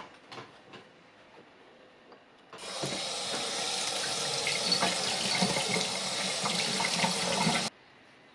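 Water running from a tap and splashing, starting about two and a half seconds in and cutting off abruptly about five seconds later, after a few faint clicks.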